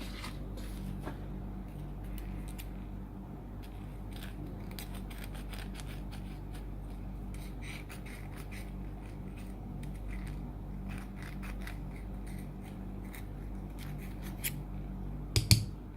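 Small file scraping inside the metal contact of an XT150 connector in short, irregular strokes, cleaning out the contact for reuse. There are a couple of louder clicks near the end.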